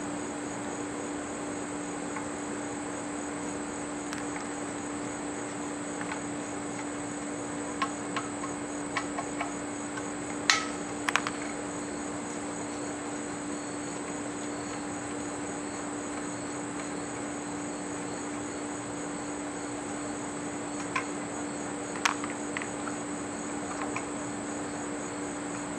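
Steady chirring of insects, with a few sharp clicks and knocks scattered through it, the loudest about ten seconds in and near the end, as the plastic shroud of an air compressor is unscrewed and lifted.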